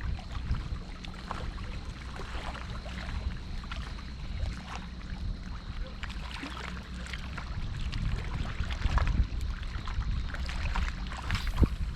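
Water splashing and lapping, with a steady low rumble of wind on the microphone.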